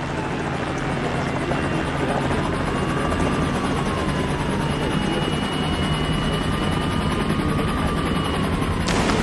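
Helicopter rotor chopping steadily with police sirens wailing beneath, their pitch slowly rising and falling over and over. A single sharp crack comes near the end.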